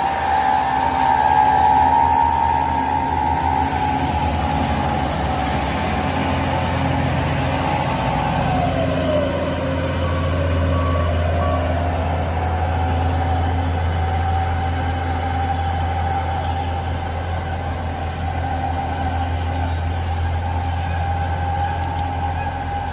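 Heavy diesel trucks driving past on the road, with the engines running under a low rumble and a steady whine. The whine drops in pitch and climbs back again about ten seconds in.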